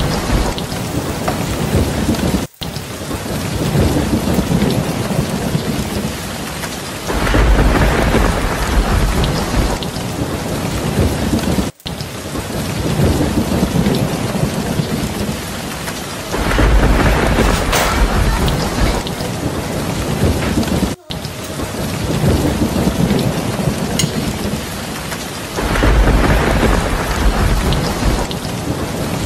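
Rain-and-thunderstorm ambience: a steady hiss of rain with a low rumble of thunder about every nine seconds. The same stretch repeats as a loop, with a brief gap each time it restarts.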